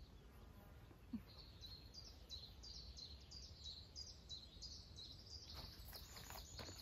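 Faint outdoor quiet with a small bird calling a steady series of short high chirps, about three a second. Footsteps on the trail come in near the end.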